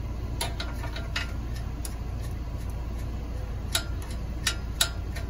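Wrench working the steel rear axle nuts of a bicycle: short metallic clicks with a slight ring, a few scattered ones and then three close together near the end.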